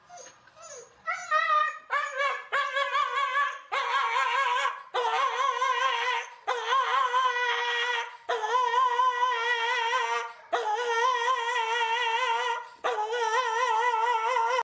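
Dog howling in a string of about eight long notes, each held one to two seconds with a fast, even warble in the pitch.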